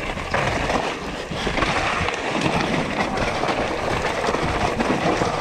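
Mountain bike ridden fast down a rough trail: steady wind rush on the microphone, with the tyres' roar and the bike's rapid clatter and rattle over the ground.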